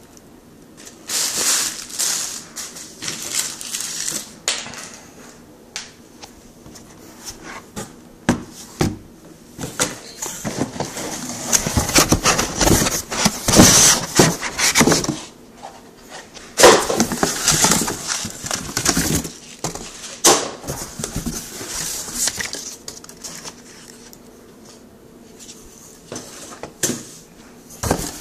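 Unpacking handling noise: irregular bursts of rustling and scraping of packaging, with scattered clicks and knocks. The louder bursts come about a second in and again between about twelve and twenty seconds in.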